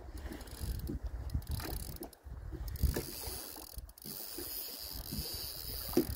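Wind buffeting the microphone, with the mechanical whirr and irregular clicks of a spinning reel as a carp is played on a light rod, the clearest clicks about three seconds in and near the end.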